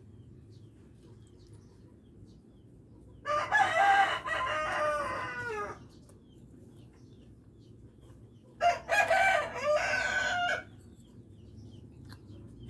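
Rooster crowing twice, each crow about two seconds long with a falling end, the first about three seconds in and the second about eight and a half seconds in. A low steady hum runs underneath.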